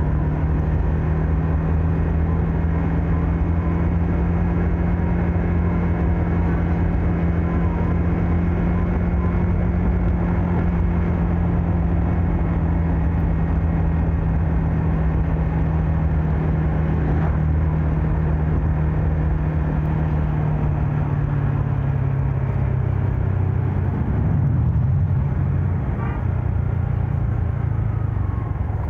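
Yamaha MX King 150 motorcycle's single-cylinder engine running steadily while riding along, mixed with road and wind noise. Its note drops a little about three-quarters of the way through as the throttle eases.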